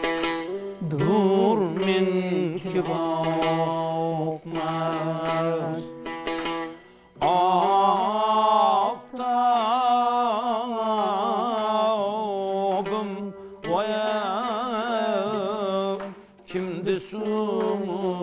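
Uzbek tanbur plucked under male singing of a qalandar from the maqom repertoire, sung phrase by phrase with short breaks between phrases. A master sings a line and a younger singer repeats it after him. The melody bends in ornamented turns over a steady drone.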